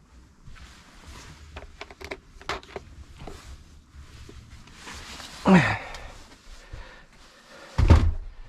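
A heavy leisure battery being manhandled into place: scattered knocks and clunks, a strained voiced grunt about five seconds in, and a heavy low thump near the end as it is set down.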